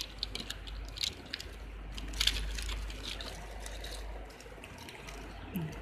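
Clear plastic packaging rustling and crinkling, with scattered small clicks and knocks from the earphones and the cardboard phone box being handled, over a steady low hum.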